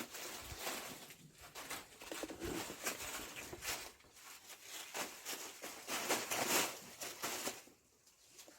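Irregular rustling and scuffling close to the microphone, in uneven bursts with short pauses between them.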